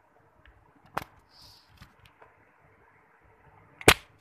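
Two sharp knocks of handling noise, one about a second in and a louder one near the end, over faint room noise.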